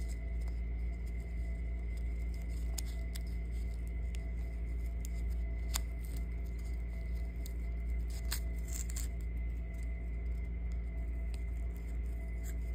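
A steady low hum with a faint steady tone above it, and a few light clicks and rustles from black cord being wound around a cardboard card, loudest about 6 seconds and 8 to 9 seconds in.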